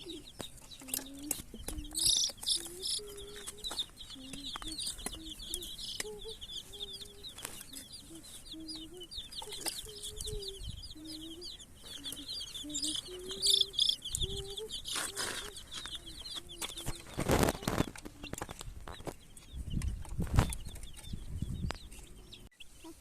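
A brood of baby chicks peeping rapidly and continuously, over a lower wavering clucking. A few louder rustling noises come in during the second half.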